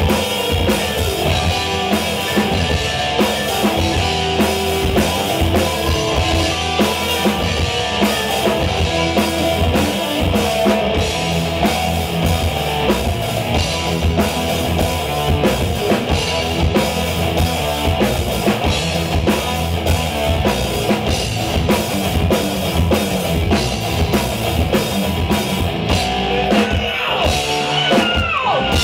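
Live heavy metal band playing loud: electric guitars, bass and a drum kit keeping a steady beat. Sliding high notes come in near the end.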